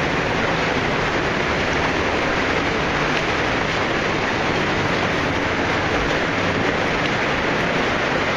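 Underground stream rushing and splashing over rocks: a steady, even rush of water.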